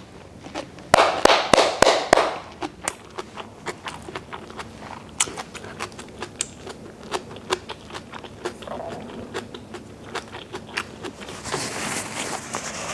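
A person chewing a mouthful of rice and kimchi close to a clip-on microphone: a second or so of crunching near the start, then many small wet mouth clicks. Near the end, a tissue rubs and rustles against the mouth.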